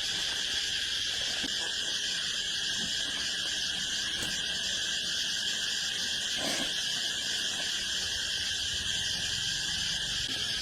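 Steady, unbroken chorus of insects buzzing in several high bands, with two faint knocks in the middle.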